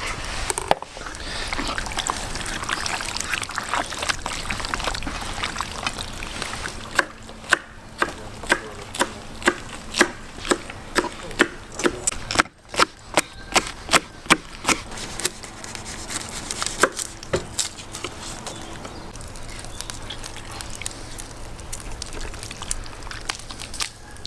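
Knife chopping on a wooden cutting board: a run of sharp, evenly spaced knocks, about two a second, lasting some eight seconds in the middle, with quieter handling noise of food preparation before and after.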